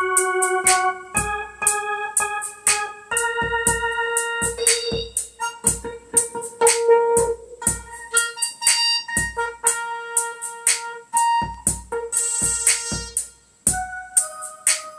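Instrumental gospel music: held keyboard chords, organ-like, changing every second or two over a steady drum beat.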